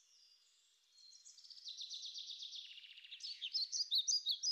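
Songbird singing: a rapid trill that swells about a second in, then a run of quick, louder chirps near the end.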